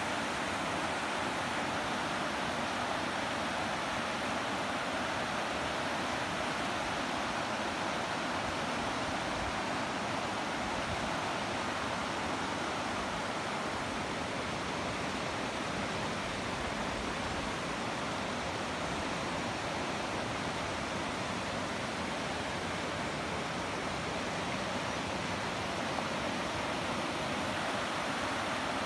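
A rocky river rushing over stones and small rapids: a steady, even roar of water that does not change.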